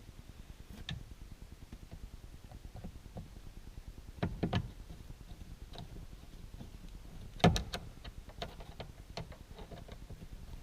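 Scattered sharp clicks and knocks of plastic and small metal parts as a car sun visor is handled and fitted to the roof with its screws. There is a cluster of knocks about four seconds in and the loudest knock about seven and a half seconds in, with a few lighter ticks after it.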